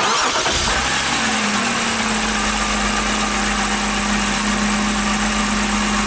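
BMW six-cylinder engine starting and then idling, a steady whine settling in about a second and a half in. The car has an intermittent misfire.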